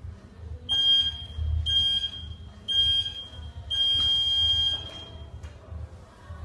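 Gym interval timer's countdown beeps: three short beeps a second apart, then a longer beep that signals the start of the workout.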